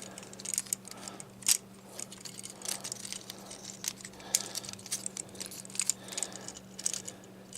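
Small plastic clicks and scrapes of a Transformers action figure's parts being rotated and folded by hand, irregular and scattered, with one sharper click about a second and a half in.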